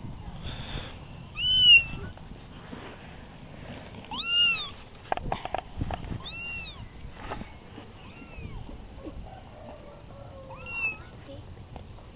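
Bengal x Persian cross kittens meowing: about five short, high meows, each rising then falling in pitch, a couple of seconds apart, the loudest near the start. Some soft rustling and knocks around the middle.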